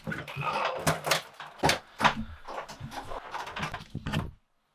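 Refrigerator door pulled open, followed by a run of knocks, clicks and clatter from handling kitchen things such as a pot. The sound cuts off suddenly near the end.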